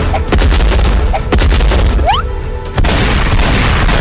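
Loud edited soundtrack: music with a deep, heavy bass under a series of sharp hits and impact sound effects. A short rising sweep comes about two seconds in.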